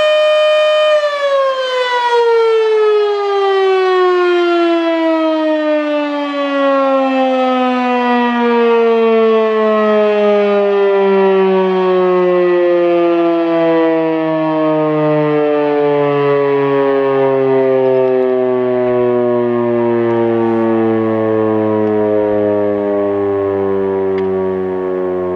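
Federal Signal Model 7B outdoor warning siren at the end of its test: a steady tone for about a second, then the power cuts and it winds down in one long, slowly falling tone as the rotor coasts to a stop.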